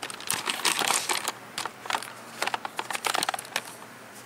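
Camera handling noise: a rapid, irregular run of clicks and rustles for about three and a half seconds while the camera is swung around and passed along, then it settles.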